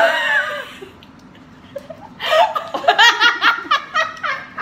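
Girls laughing: a short high vocal burst at the very start, then about two seconds in a run of laughter in quick pulses that fades out near the end.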